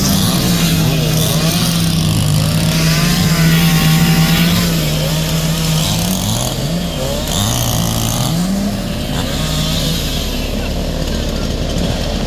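A small engine running at a high, steady pitch, then revved down and up several times in the second half, with voices in the background.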